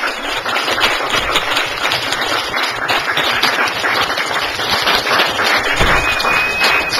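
Audience applauding, a dense patter of many hands clapping. Near the end a thin, steady high tone sounds for about a second.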